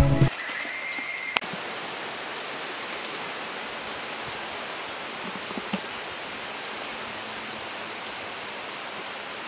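Music cuts off at the very start, leaving steady tropical rainforest ambience: an even hiss with a high, continuous insect chorus.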